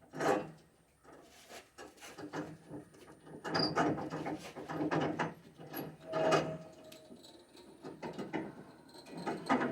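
Irregular wooden knocks, clunks and scraping of timber being handled and shifted on a sawmill, with a short squeak about six seconds in.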